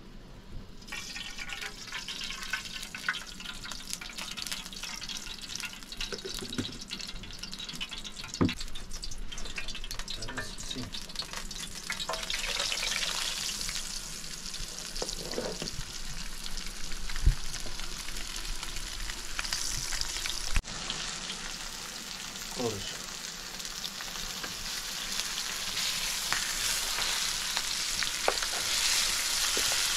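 Hot oil sizzling as food fries in an aluminium pan over a wood fire. The sizzle starts about a second in and grows louder toward the end, with a few scattered knocks.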